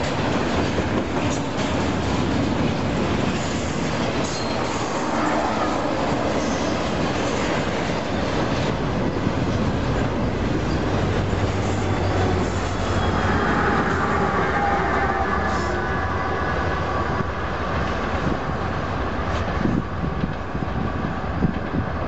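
Union Pacific double-stack intermodal freight cars rolling past at speed: a steady rumble and rattle of steel wheels clacking over the rails. Near the end the last cars go by and the sound breaks up into scattered clanks.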